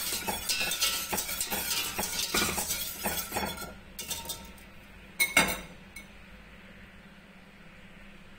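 Wire whisk stirring coconut milk and condensed milk in a stainless steel pot, its wires clinking against the metal several times a second. The stirring stops about three and a half seconds in, followed by a few scattered clinks and two loud metal clinks a little after five seconds.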